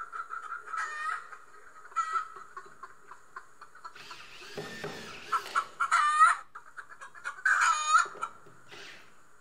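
Chickens clucking and squawking in short separate calls, the loudest about six and eight seconds in, with a brief rustling clatter around the middle.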